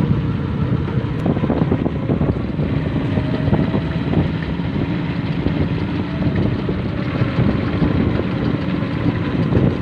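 A vehicle engine running steadily, with road and wind noise.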